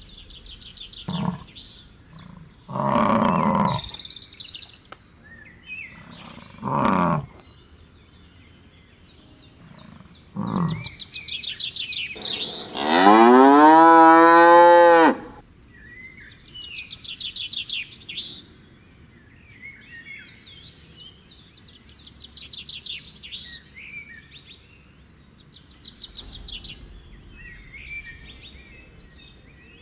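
A cow mooing once, a long call that rises and then holds for about two and a half seconds, over birds chirping. A few shorter calls come before it.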